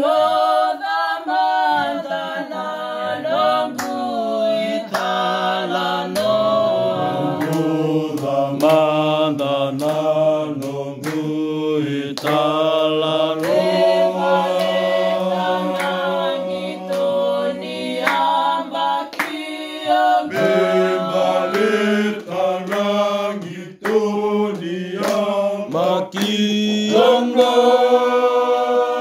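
A group of people singing together in harmony, several voices holding long notes together.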